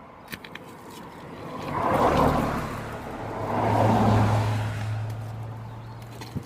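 Harley-Davidson Road King's front brakes, fitted with new EBC discs, making a noise as the bike moves. Two swelling rushes come about two seconds apart, with a steady low hum from about two seconds in; the noise began only after the EBC discs were fitted.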